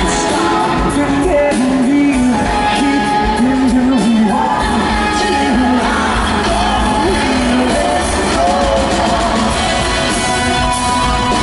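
Live pop-rock band playing loud with a male lead vocal, recorded from the front of the crowd; the singing drops out about seven seconds in and the band plays on with guitars and drums.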